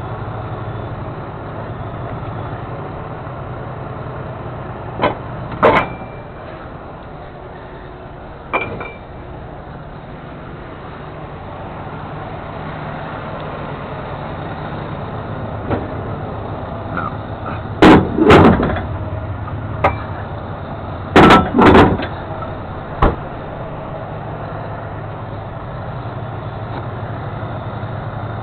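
Heavy wrecker's diesel engine running steadily, under several sharp metal bangs and clanks from a side tool compartment door and gear being handled. The loudest are two double bangs past the middle.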